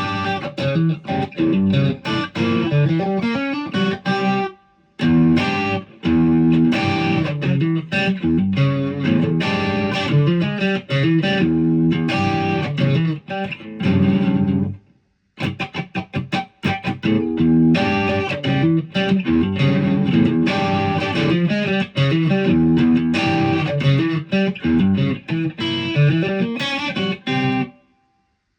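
Ibanez Prestige RG electric guitar played in quick runs and riffs, with brief stops about four and a half and fifteen seconds in, the playing ending just before the end.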